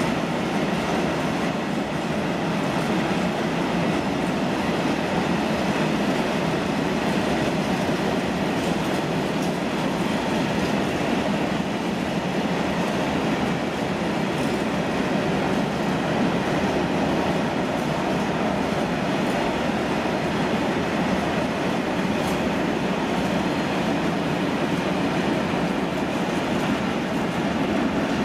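Freight train of open-top wagons rolling steadily past, with continuous wheel-on-rail noise.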